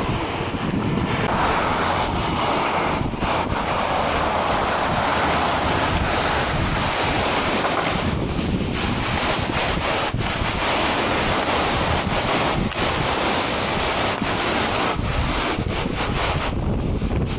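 Strong gusting wind buffeting the microphone: a dense, steady rush with brief dips, which covers any other sound.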